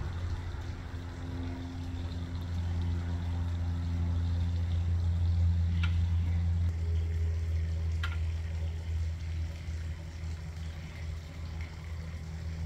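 A steady low mechanical hum, like a motor or engine running, with two brief high ticks about six and eight seconds in.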